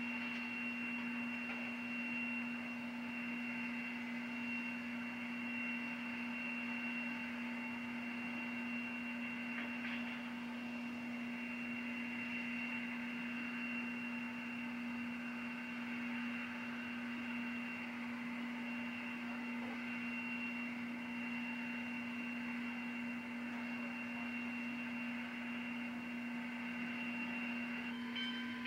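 Steady electrical hum, a low even tone with a fainter high whine above it, unchanging throughout; no locomotive or steam sound is heard.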